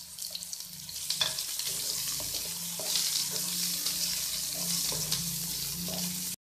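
Chopped onions, garlic and green chillies sizzling in hot oil in a pan while being stirred with a wooden spatula. The sizzle grows louder about a second in, with a few light taps of the spatula, and the sound cuts off suddenly near the end.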